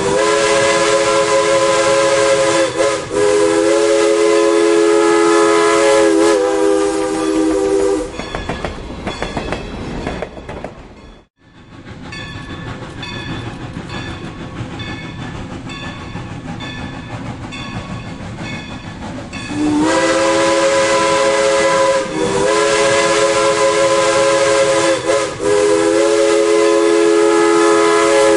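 Steam locomotive's chime whistle sounding a chord in long blasts, each briefly broken and swooping in pitch as it restarts. In the middle the whistle stops for a quieter stretch of the train running with a rhythmic clacking, with a moment of near silence partway through, before the whistle blows again.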